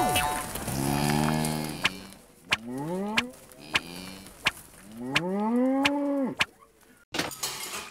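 Cow mooing three times, the last call long, rising and then falling, with sharp smacks in between as the cow is beaten with a stick.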